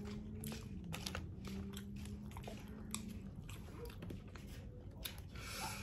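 A person chewing and biting a KFC fried-chicken meal close to the microphone, with soft irregular clicks and crunches of mouth sounds. A faint steady low hum runs underneath.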